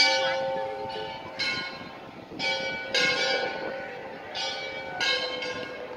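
Temple bells struck by hand again and again, about six strikes at uneven intervals, each ringing on with several steady tones and fading before the next.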